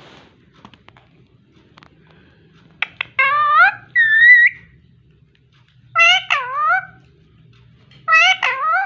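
Pet parrot calling: four short, loud calls whose pitch slides up and down, spaced a second or two apart, with faint clicks between them.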